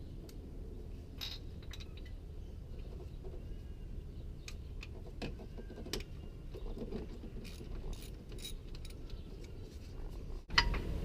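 Scattered metallic clicks and clinks of hand tools, a socket wrench working a spark plug out of the engine, with a short ringing metal clink near the end.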